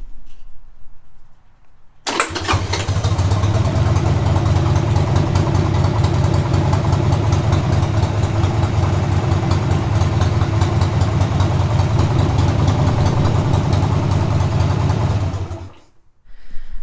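Harley-Davidson Sportster's air-cooled V-twin engine comes in abruptly about two seconds in and runs steadily at idle, then stops about a second before the end.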